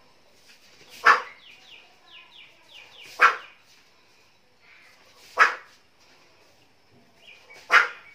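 Four sharp, forceful exhalations through the mouth, about two seconds apart, each a short explosive burst of breath pushed out all at once in a breathing exercise.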